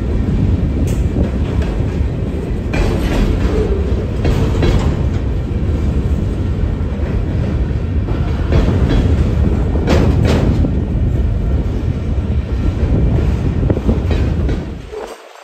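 Freight train of container flatcars loaded with trash containers rolling past close by: a steady rumble of wheels with clickety-clack over the rail joints and a few sharper clanks every few seconds.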